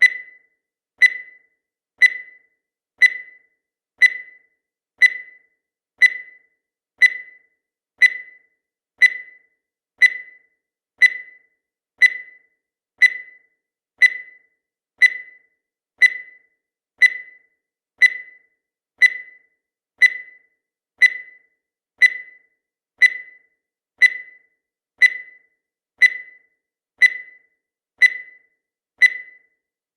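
Countdown timer sound effect: a short high electronic beep once every second, each dying away quickly, evenly repeated.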